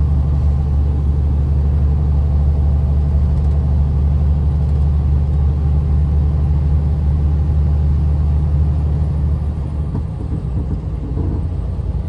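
Truck's engine and road noise heard from inside the cab while driving, a steady low drone that eases off and changes about ten seconds in.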